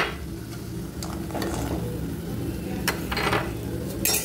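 Metal spatula scraping and knocking against the kadai while fried urad-dal bori are scooped out of a little mustard oil, with a faint sizzle underneath. Near the end there is a sharp clink against a glass bowl as they are dropped in.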